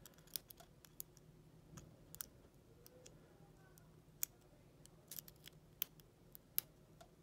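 Faint, irregular small clicks and ticks of a lock pick and tension wrench working the pin stack of a five-pin Ace closed-shackle padlock held under heavy tension.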